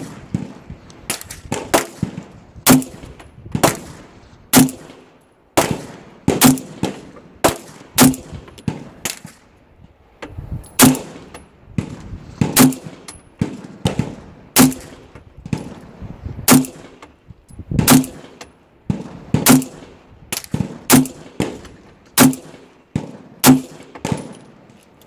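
Glock 30S pistol firing .45 ACP rounds in a long, steady string, roughly one to two sharp shots a second, each with a short ring-out.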